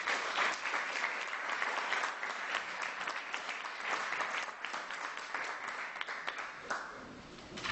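Audience applauding: dense clapping that starts just after the talk ends and tapers off about seven seconds in.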